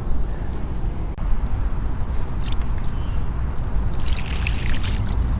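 Water splashing and trickling from a hooked carp thrashing at the bank, in two short flurries about two and four seconds in, over a steady low rumble.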